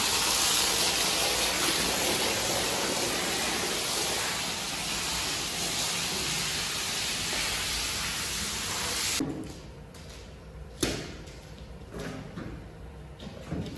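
Water jetting from a hose's brass spray nozzle onto a soapy, wet carpet: a steady hiss that cuts off suddenly about nine seconds in. After it the sound is quieter, with one sharp knock and a few small clicks.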